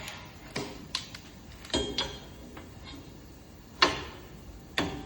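Metal clamps being fitted and tightened onto metal tubing in a welding jig: a series of about six sharp clicks and clanks, some ringing briefly, the loudest a little before four seconds in.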